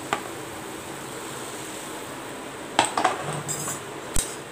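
Metal slotted skimmer clinking and knocking against the pan and plate while fried biscuits are lifted out of the oil: a click just after the start, a few sharp knocks with a short rattle about three seconds in, and one more knock near the end, over a faint steady hiss.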